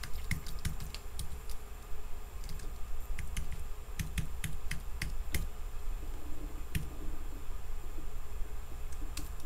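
Typing on a computer keyboard: irregular key clicks as a username and password are entered, with a couple of quick clicks near the end.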